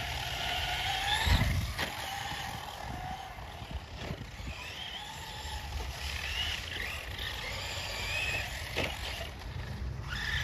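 Electric RC short-course truck's brushless motor and drivetrain whining, the pitch rising and falling with the throttle, with a thump about a second and a half in.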